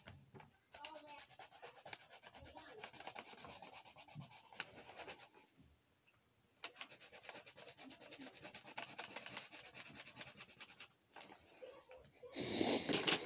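Coloring pencil scribbling rapidly back and forth on a coloring-book page, in two stretches with a short pause in the middle. A louder burst of noise comes near the end.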